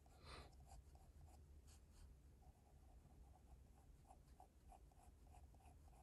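Graphite pencil scratching faintly on drawing paper in light sketching strokes: one longer stroke a moment in, then short repeated strokes about three a second in the second half.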